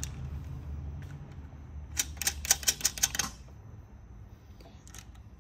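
A quick run of about a dozen light clicks and rattles, starting about two seconds in and lasting just over a second: small hardware being handled while a plastic LED trailer light is fitted to its steel rack bracket.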